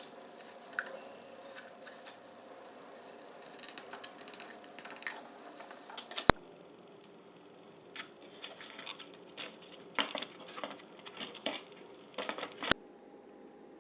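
Crafting sounds of foam plates being handled and cut: scattered short snips, scrapes and taps. There are two sharp clicks, one about six seconds in and one near the end.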